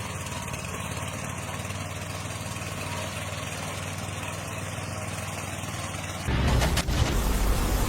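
An engine running steadily at idle, then about six seconds in the sound changes abruptly to a louder, rougher noise with a sharp click shortly after.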